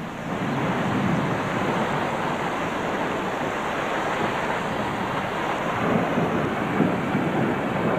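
Heavy rain pouring down in a steady, even rush that swells in within the first half second.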